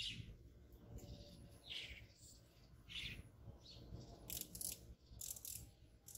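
Faint bird chirps: short high calls repeating every second or so, over a low steady rumble. Two brief, very high buzzes come about four and five seconds in.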